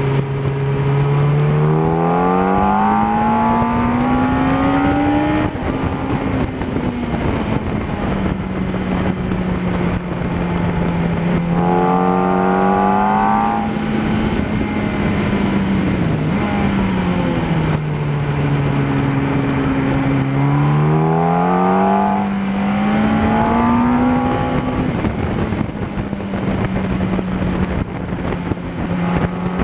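Yamaha R1 superbike's inline-four engine under hard acceleration, heard from an onboard camera: its pitch rises in long pulls three times, holding steady between them, and drops back about sixteen seconds in as the throttle is rolled off.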